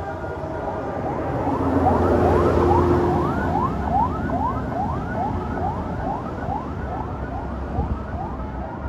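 Bus telolet horn playing a fast siren-like pattern of short rising whoops, about two and a half a second, over the low rumble of the bus engine.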